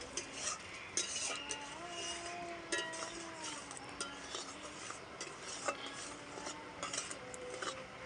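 A spoon stirring thickening tamarind chutney in a pan, with scattered clinks and knocks of the spoon against the pan.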